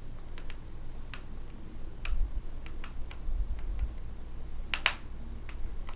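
Scattered small clicks and ticks of a screwdriver working at the screws in a laptop's plastic bottom panel, with a sharper double click about five seconds in.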